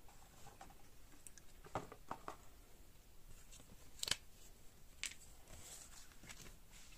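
Faint handling of printed cardboard cards, with a few light clicks and taps as they are taken out and laid down on a cloth-covered table. The loudest tap comes about four seconds in.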